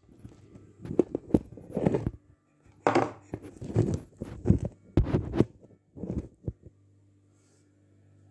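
A phone being handled right at its microphone: a run of irregular rubbing and knocking noises as fingers and skin brush over it. These stop a little before the end, leaving only a low steady hum.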